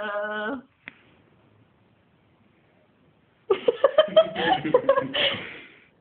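A short held vocal note at the very start, then a quiet gap, then a loud burst of human laughter about three and a half seconds in, lasting about two seconds in quick choppy pulses.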